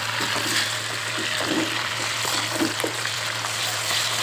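Sliced onions and ginger-garlic paste frying in hot oil in a wok, a steady sizzle, while a spatula stirs them.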